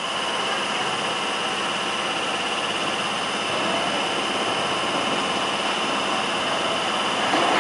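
Underground train noise: a steady high whine over a constant rumble, with an approaching Metropolitan Line S8 Stock train growing slightly louder about halfway through and again near the end.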